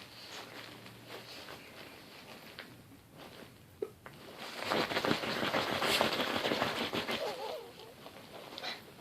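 A small rat terrier scuffling and snuffling close by. The sound is quiet at first, then turns loud and scratchy with rapid clicks for a few seconds past the middle.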